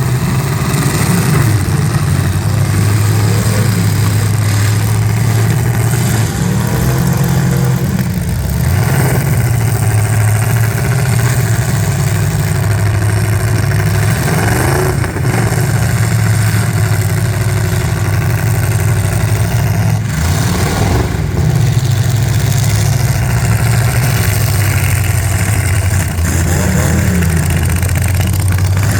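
Demolition derby cars' engines running hard, repeatedly revving up and dropping back over a steady low drone, with a couple of sudden knocks about halfway through.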